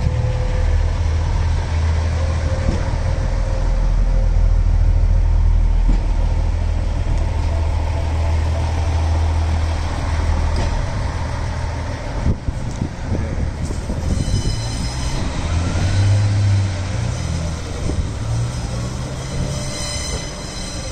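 Class 142 Pacer diesel railbus pulling away and moving off down the line: a loud low drone from its underfloor diesel engine and running gear that weakens after about ten seconds as it draws away. A thin high-pitched whine comes in over it from about two-thirds of the way in.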